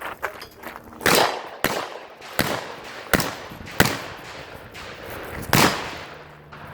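Shotgun fired about six times at uneven intervals, each a sharp report, a few of them with a short echoing tail.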